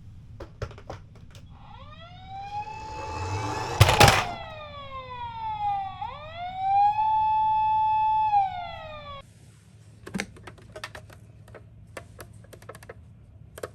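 Toy ambulance's electronic siren wailing, rising and falling twice, holding its high note the second time, then cutting off abruptly. A sharp knock sounds about four seconds in, and a string of light clicks follows the siren.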